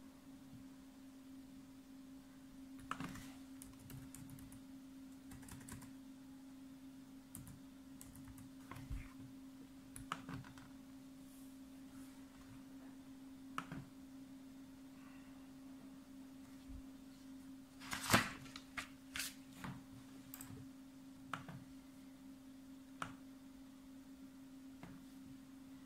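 Laptop keystrokes and clicks in scattered, irregular clusters as a web address and search are typed and links clicked, the loudest cluster about two-thirds of the way through. A faint steady hum runs underneath.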